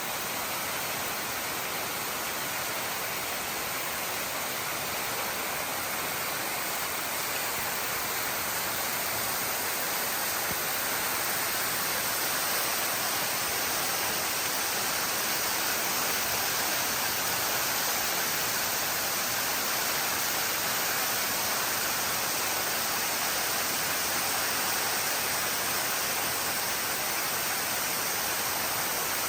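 Steady rush of a waterfall plunging into a deep sinkhole, the water falling at a moderate flow.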